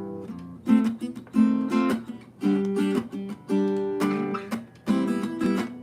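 Acoustic guitar strumming chords, about two strums a second, each chord ringing out and fading before the next.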